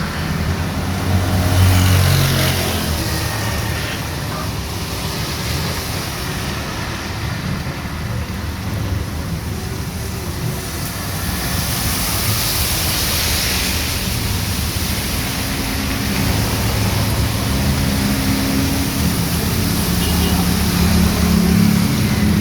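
Heavy rain falling steadily, with motor vehicles passing on the wet street: engine hum in the first few seconds and again through the last several seconds, and a louder hiss about halfway through.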